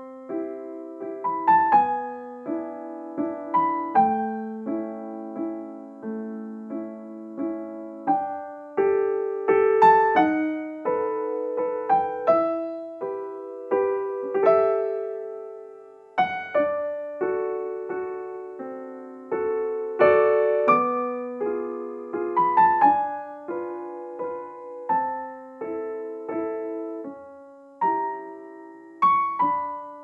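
Background piano music: a slow melody of single struck notes over held chords.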